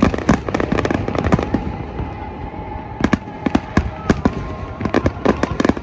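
Fireworks going off in a rapid, irregular string of sharp pops and cracks, with a faint thin whistle in the middle.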